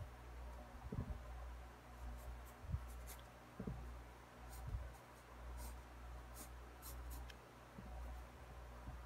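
Pencil sketching on paper: faint, short scratchy strokes, with a few soft bumps of the hand on the sheet, over a low steady hum.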